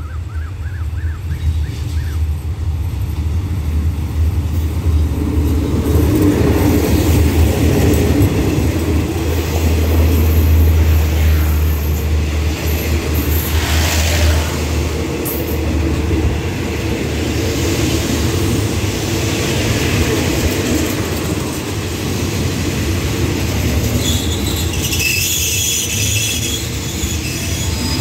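Hitachi diesel-electric locomotive no. 4518 hauling a passenger train into a station. The engine's low drone is loudest as the locomotive passes, followed by the coaches rolling by as the train slows. A high squeal from the wheels and brakes comes near the end as it draws to a stop.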